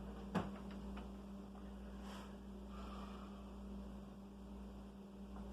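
Steady low electrical hum, with one sharp click about half a second in and a few faint small clicks.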